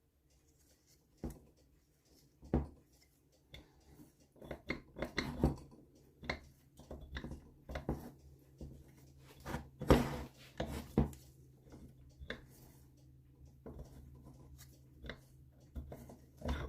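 Irregular clicks and knocks of metal engine parts being handled, as a pinion in an NSU Quickly 2-speed moped engine is pushed downwards and turned to work it off its shaft; the loudest knock comes about ten seconds in.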